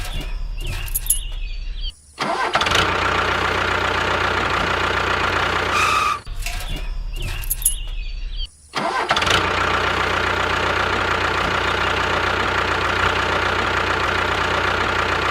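A small engine of a miniature DIY tractor starting up and then running steadily. The start-up is heard twice, each time broken off by a brief cut in the sound before the steady running.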